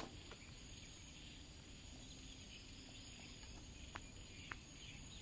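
Faint outdoor background with two light taps of a kitchen knife on a wooden cutting board about four seconds in, half a second apart.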